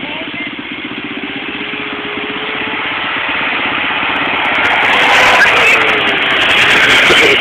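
Mitsubishi Pajero 4x4 driving over a grass field, its engine growing louder as it approaches and passes close by.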